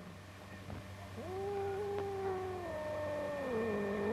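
An angry black-and-white alley cat giving one long, low yowl that starts about a second in, holds a steady pitch, then drops lower near the end.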